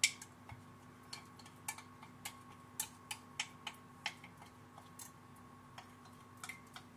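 A spoon clicking and scraping against a flexible plastic cup as thick turmeric-honey paste is scraped out. It gives an irregular string of sharp light clicks, two or three a second, the first the loudest.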